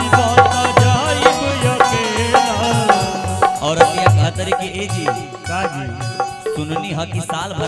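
Live Bhojpuri stage-show music: a steady hand-drum beat under a wavering melodic lead line, a little softer in the second half.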